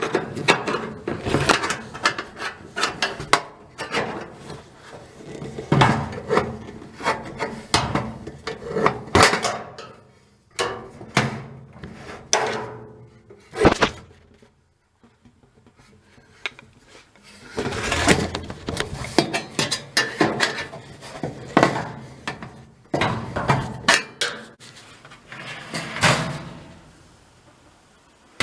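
Metal filing cabinet drawer and its slide clips being worked by hand: repeated metallic clicks, knocks and rattles, with a quiet pause about halfway through.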